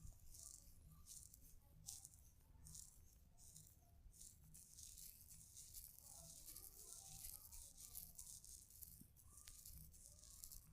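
Faint scratchy rustling of hair being rubbed and worked by hands during a head massage, coming in repeated soft bursts over a low hum.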